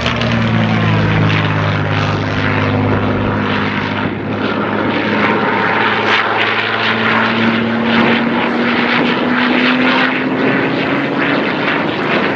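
Supermarine Spitfire PR XI's Rolls-Royce Merlin V12 engine running loud and steady in a display flypast. Its note falls at the start as the aircraft passes, then rises slowly over the following seconds.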